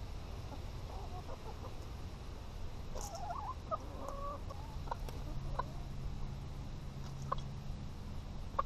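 Domestic hens clucking as they forage. A run of wavering clucks comes about three seconds in, followed by a few short single clucks.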